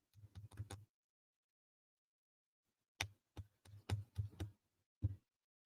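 Light clicks and taps of small wooden puzzle pieces being handled and pushed together: a few in the first second, a quick cluster about three seconds in, and one more about five seconds in.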